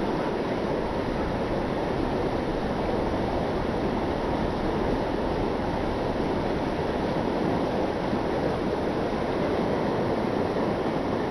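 Steady rush of flowing river water, an even hiss that neither rises nor falls.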